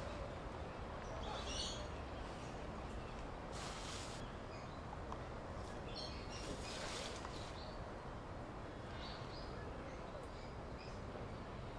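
Steady outdoor background noise with a few short, high bird chirps scattered through it, and brief rustling bursts near the middle.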